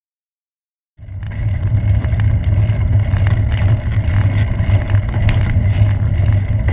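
After about a second of silence, traffic noise starts at a bicycle-mounted camera as a diesel Jaguar XF car passes close alongside. A heavy, steady low rumble of engine and road noise carries frequent sharp clicks and rattles from the bike and camera mount.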